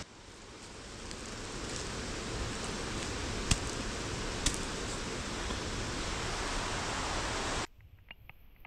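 Steady rushing noise that swells over the first couple of seconds, with two sharp clicks partway through. It cuts off abruptly near the end, leaving faint scattered clicks.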